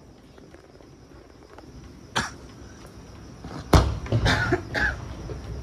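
Fireworks going off: a single bang about two seconds in, then a louder run of several bangs from about three and a half seconds on as more shells go up.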